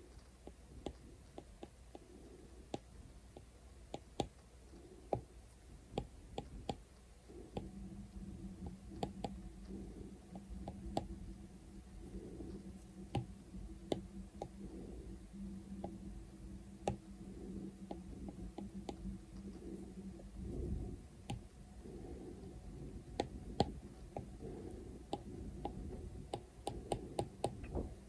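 Apple Pencil's plastic tip tapping and stroking on an iPad's glass screen: scattered light clicks that come thicker near the end. A low steady hum comes in about seven seconds in.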